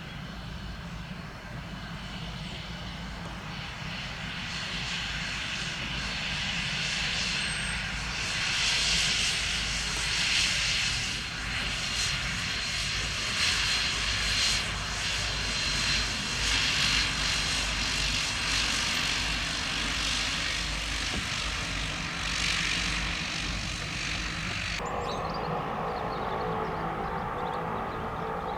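Beechcraft King Air A90 twin turboprop taking off: engine and propeller noise grows louder, swelling and fading as the aircraft runs past. About 25 seconds in it gives way abruptly to a different, steady sound with held tones.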